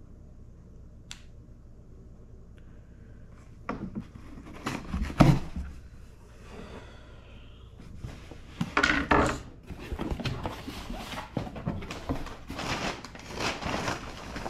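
A few knocks about four to five seconds in as a cardboard shipping box is set down on a wooden table, then scissors cutting the box's tape and a dense crackle of cardboard flaps and paper packing as the box is opened.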